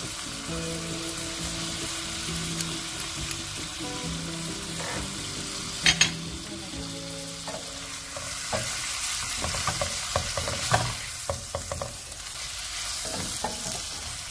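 Seafood stir-fry sizzling in a frying pan while it is stirred with a wooden spatula. Two sharp knocks come about six seconds in, and in the second half the spatula scrapes and taps against the pan in quick succession.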